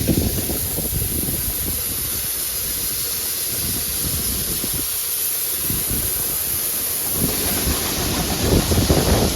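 Harvest machinery running with a steady hiss, wind buffeting the microphone in uneven low gusts that grow stronger near the end.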